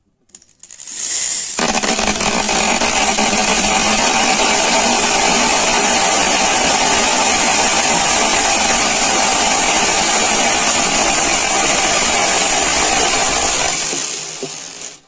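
Many small beads falling in a continuous dense clatter of tiny clicks. It builds up over the first second or two, holds steady, then thins out and stops near the end.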